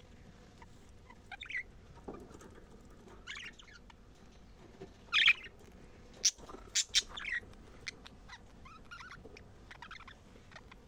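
Budgerigars chattering, with short scattered chirps and warbles that are loudest about five to seven seconds in, mixed with a few sharp clicks.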